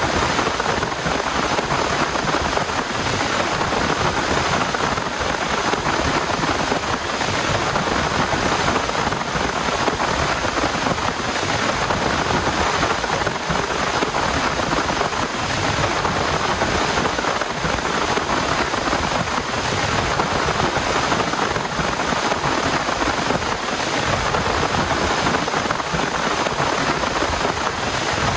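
Heavy rain falling steadily, an even unbroken patter.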